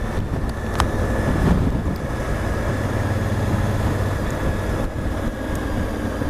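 Honda Africa Twin's parallel-twin engine running steadily on the move, with wind noise buffeting the microphone.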